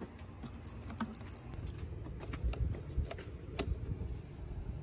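Small plastic clicks and light rattles as an A/C relay is handled and pushed into a car's under-hood fuse and relay box, over a low steady rumble. One sharper click comes about three and a half seconds in.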